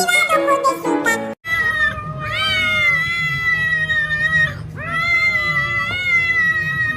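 A cat meowing in two long, drawn-out calls, each rising at the start and then held, the first about three seconds long and the second about two. A snatch of sung music comes before them and cuts off sharply.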